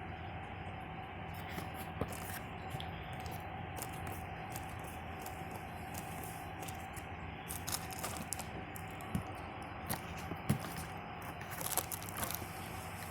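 Air conditioning unit running with a steady hum and a held tone, with scattered sharp clicks and short rattles, most of them in the second half.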